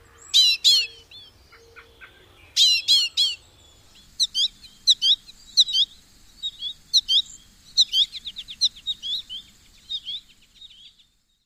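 American goldfinch calls and song: sharp high chirps in groups of two or three, then from about four seconds a quicker run of twittering notes with a fast trill near the end.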